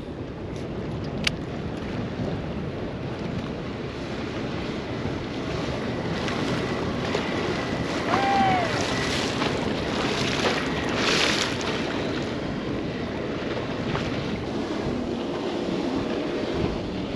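Wind on the microphone over water lapping around a small fishing boat, with a brief high squeak about eight seconds in.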